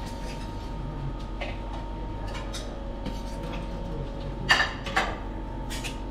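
Dishes and cutlery clinking in a dining room. There are a few light clinks, then two louder ringing clinks about four and a half and five seconds in, over a steady faint hum.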